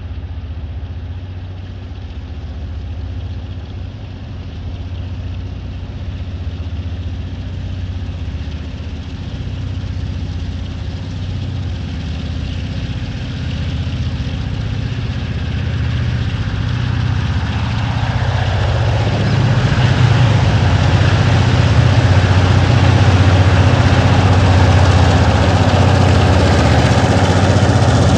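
Two diesel-electric freight locomotives working hard up a grade at the head of a log train: a deep, steady engine drone that grows louder as they approach, becoming much fuller and louder about two-thirds of the way through as the lead locomotive draws close.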